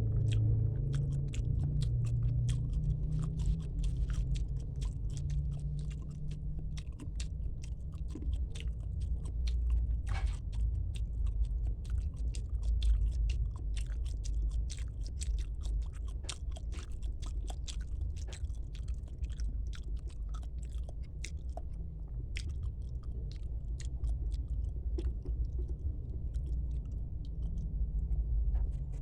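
Close-miked chewing of a tilapia and spinach meal, with many small wet mouth clicks in quick succession over a steady low rumble.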